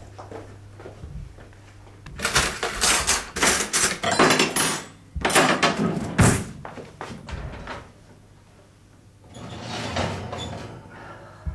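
Three bursts of clattering and knocking, like doors, cupboards and crockery being handled, over a faint steady low hum.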